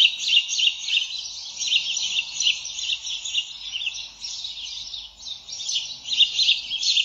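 Recorded call of house sparrows played back for a guessing game: continuous, dense chirping.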